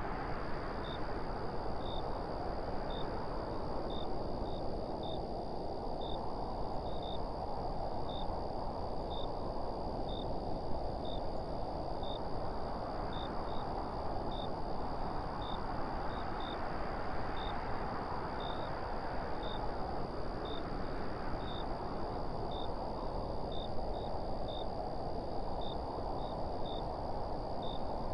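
Wind blowing in slow gusts, swelling and easing every six seconds or so. A steady high whine and short high chirps, repeating irregularly about once or twice a second, sound through it.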